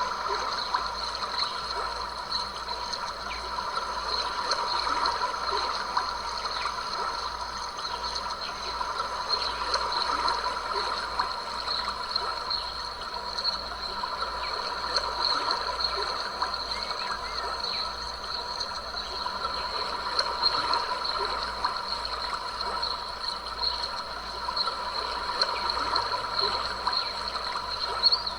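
Small stream running and trickling over rocks, a steady babbling water sound.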